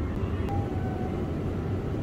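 Steady low rumble of supermarket background noise, with a few faint high tones over it.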